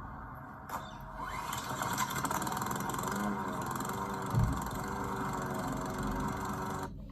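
Small petrol lawn mower engine catching and revving up about a second in, then running steadily, with a low thump midway; it cuts off abruptly near the end.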